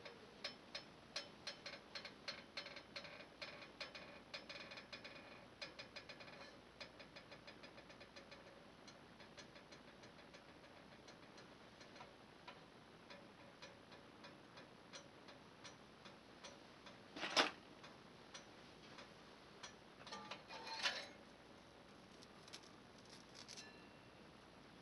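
Sunbeam 20-3 auto-drop toaster toasting: a fast run of light ticks for the first several seconds that thins out, then a single sharp click about 17 seconds in and a short clatter about 20 seconds in as the toasting cycle ends and the toast comes up.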